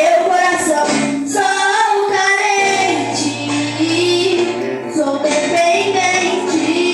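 Portuguese worship song: a woman's voice singing a melody over instrumental accompaniment, with a held low bass note entering under it partway through.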